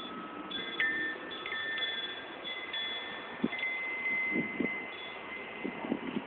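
Wind chimes ringing: several clear, steady metallic notes struck one after another, each ringing on for a second or more and overlapping. A few soft low knocks come in the second half.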